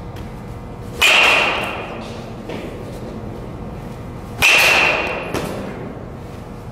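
Metal baseball bat hitting pitched balls twice, a few seconds apart; each contact is a sharp crack that rings briefly. A fainter knock follows each hit.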